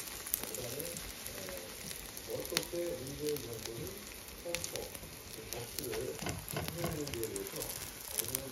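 Egg-battered leaves frying in hot oil in a nonstick griddle pan: a steady sizzle with scattered sharp crackles and pops.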